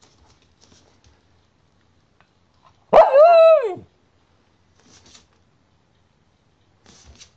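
Cairn terrier giving a single drawn-out bark about three seconds in, its pitch rising and then falling. A few faint ticks come before and after it.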